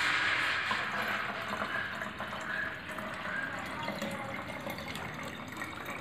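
Watery leaf extract poured from a plastic measuring jug into the narrow neck of a plastic bottle: a steady pouring splash that slowly thins and fades as the jug empties.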